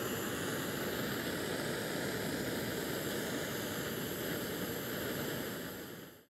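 Small backpacking stove burner running steadily under a lidded pot, a constant rushing hiss that stops abruptly at the end.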